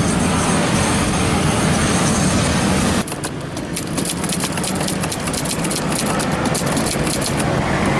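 Steady traffic and engine noise for about three seconds. Then a rapid, irregular run of sharp clicks from the keys and typebars of a manual Brother typewriter being typed on, with the traffic noise still underneath.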